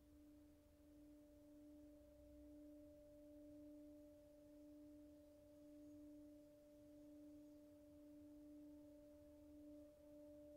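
Singing Rin bowls ringing faintly in a long sustain: a low tone with a higher tone above it, swelling and fading slowly about every two seconds. A third, higher tone joins near the end.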